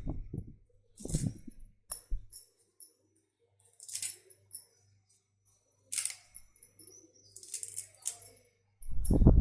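Fresh medicinal leaves being torn by hand and dropped into a pot: short, crisp rustles every second or two with quiet gaps between.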